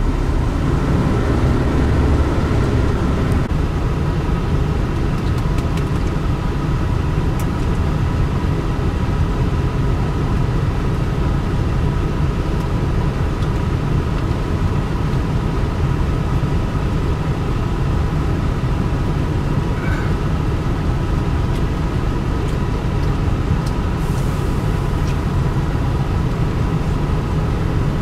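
Diesel engines of a Hitachi 350H excavator and a dump truck running steadily, a low rumble with a faint steady whine on top.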